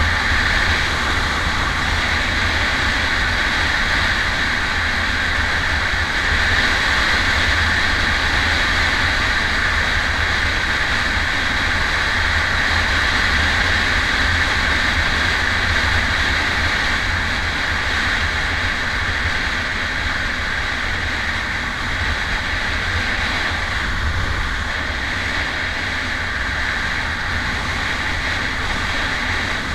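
Motorcycle riding at a steady cruising speed: engine, tyre and wind noise blend into one continuous rush, picked up by a camera mounted on the handlebars.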